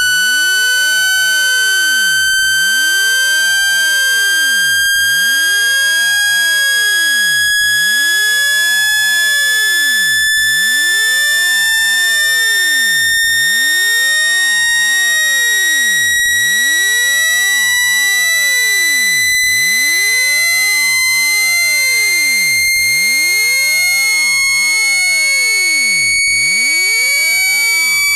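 Synthetic water-eject tone for clearing water out of a phone speaker: a loud, steady electronic buzz rich in overtones, its pitch climbing slowly and evenly.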